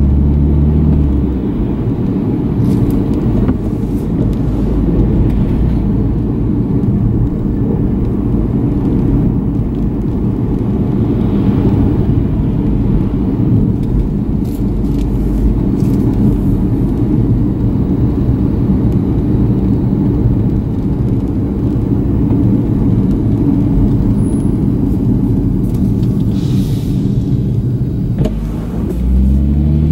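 Nissan V36 Skyline 250GT's 2.5-litre VQ25 V6 and tyre rumble heard from inside the cabin while driving along at steady speed. About a second before the end, the engine note rises as the car accelerates.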